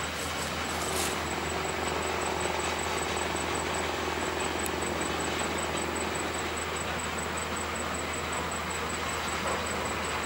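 Motorised rail inspection trolley running along the track, a steady engine hum with no distinct knocks or changes.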